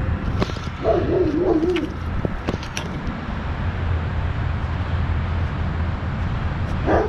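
Small utility vehicle engine running steadily at idle, with a short wavering whine about a second in.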